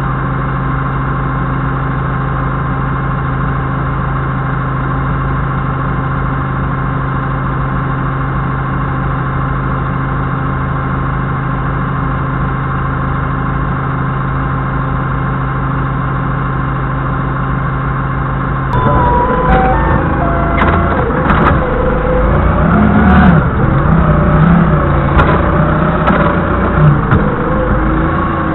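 Doosan 4.5-ton forklift's engine idling steadily. About two-thirds of the way in, it gets louder and revs unevenly with shifting pitch and a few knocks as the mast is raised.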